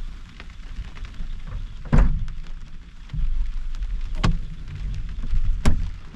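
Storm wind buffeting the truck camper, a steady low rumble, with three sharp knocks: about two seconds in, a little past four seconds, and near the end.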